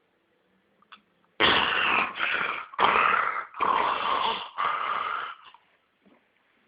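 A pet snoring: after a quiet start, five loud, noisy snoring breaths come one right after another over about four seconds, then it dies away.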